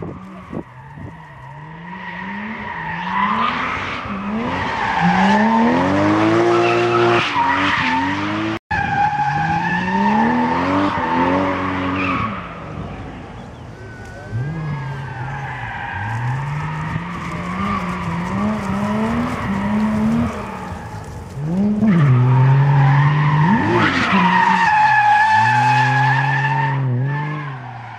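A drift car sliding through a corner: the engine revs up and down again and again with the throttle, over a sustained tyre squeal as the rear tyres spin and smoke. It is loudest near the end.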